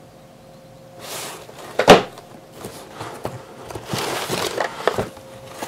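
Hands rummaging in a cardboard shipping box packed with crumpled paper: paper rustling and cardboard handling starting about a second in, with a sharp knock about two seconds in and a few lighter knocks later.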